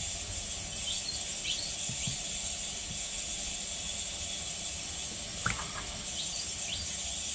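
Steady background hiss with a few faint, short bird chirps, and one light click of a hand tool about five and a half seconds in.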